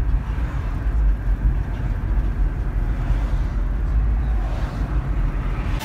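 Moving car heard from inside the cabin: a steady low road rumble.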